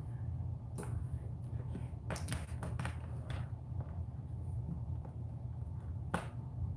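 A steady low hum with a few short clicks: a cluster about two to three seconds in and a sharper one near the end.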